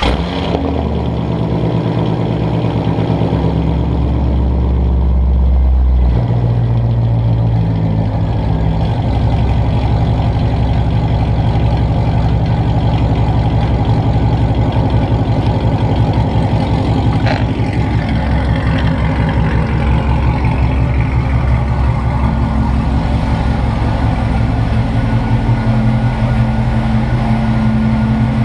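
C5 Corvette's 5.7-litre V8 running loud just after a cold start, through XS Power long-tube headers and an off-road X-pipe into a straight-pipe exhaust with no cats, mufflers or resonators. The note shifts about six seconds in, then the engine idles steadily.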